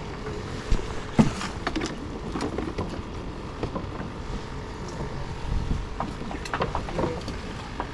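Outdoor pier ambience: steady wind on the microphone and sea noise, with scattered short knocks and clicks.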